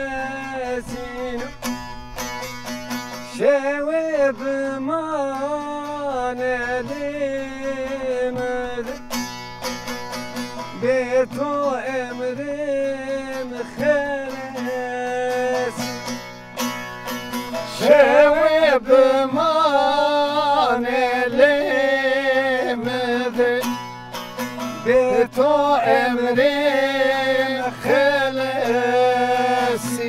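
Bağlama (long-necked saz) played as an instrumental passage: a plucked melody with sliding, bending notes over steady ringing drone strings, getting louder a little past halfway.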